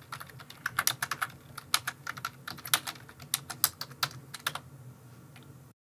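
Typing on a computer keyboard: a quick, uneven run of key clicks that stops about four and a half seconds in, leaving only a faint low hum before the sound cuts off.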